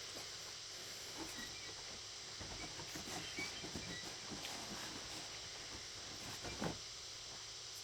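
Eating sounds close to the microphone: chewing with small irregular clicks and crackles, and one louder knock about six and a half seconds in, over a steady hiss.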